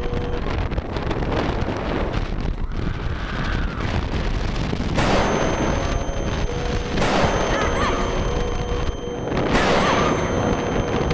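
Steady wind noise and rumble of a roller coaster ride, with a dubbed-in 'boom' meme sound effect hitting three times, about halfway through, at about seven seconds, and near the end.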